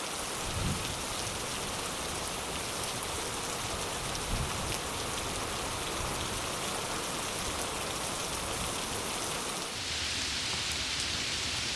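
Heavy rain pouring down in a thunderstorm, a dense steady hiss of drops with a couple of low bumps early on. About ten seconds in the hiss turns brighter and harsher.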